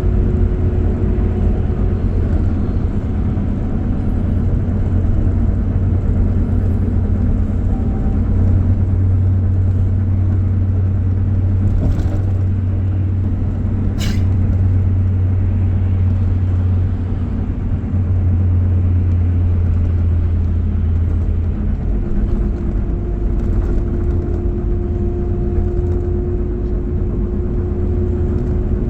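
Steady low vehicle rumble, with a single sharp click about halfway through and a faint steady tone in the last third.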